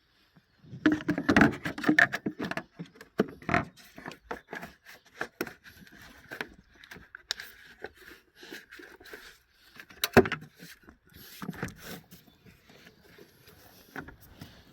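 Irregular clicks, knocks and scrapes of hand work on parts being fitted back, busiest about a second in, with a sharp knock near the ten-second mark.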